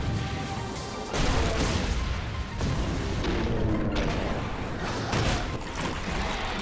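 Monster-battle film soundtrack: music under heavy rumbling booms and crashes, growing louder about a second in.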